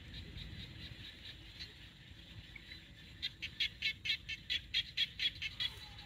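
A bird calling in a rapid run of about a dozen sharp notes, about four or five a second, starting about three seconds in. Under it runs a steady high hiss, with a low rumble in the first second.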